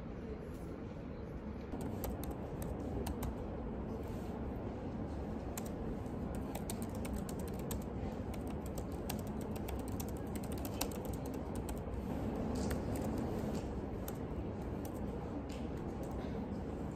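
Typing on a laptop keyboard: quick, irregular key clicks that start about two seconds in, over a steady low background noise.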